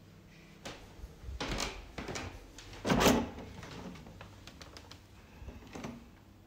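A door being handled: several short knocks and clunks, the loudest about three seconds in.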